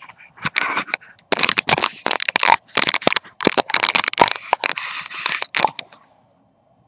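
Crackling, scratching handling noise from fingers rubbing and bumping on the recording camera's microphone: a dense run of irregular scrapes and knocks that stops about six seconds in.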